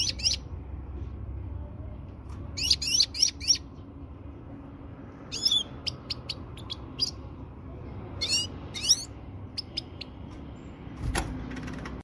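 Female finch calling in short, quick chirps, grouped in clusters of two to five with pauses between, over a low background rumble; a female's call of the kind played to get males into breeding mood. A single knock sounds near the end.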